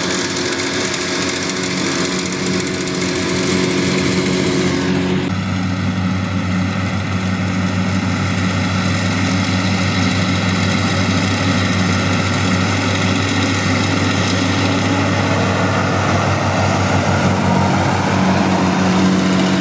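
Massey Ferguson 399 tractor's six-cylinder diesel engine running steadily under load while it drives a John Deere mower through standing grass. The engine note changes abruptly about five seconds in.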